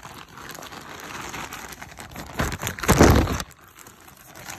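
Plastic mailer bag rustling and crinkling as it is handled and opened, with a louder, deeper rustle about three seconds in.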